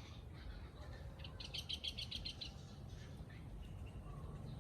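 A bird calling: a quick run of about ten high chirps lasting just over a second, starting about a second in, over a low steady background rumble.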